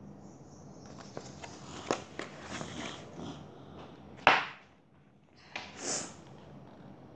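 A paperback book being handled and its pages turned: paper rustling with small clicks, a single sharp knock a little over four seconds in, then another short rustle.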